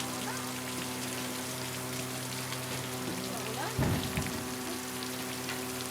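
Steady hiss over a low electrical hum, with one short low thump a little before the middle.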